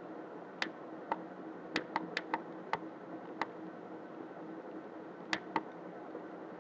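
About ten sharp computer clicks from a mouse and keyboard, several in a quick run about two seconds in and a pair near the end, over a faint steady hum.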